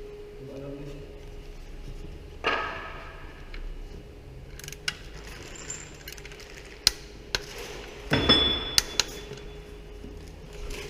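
Scattered metallic clicks, clinks and knocks of hand tools and small parts being handled during car maintenance. There is a short rustle about two seconds in, the sharpest knocks come in a cluster about eight seconds in, and a faint steady hum sits underneath.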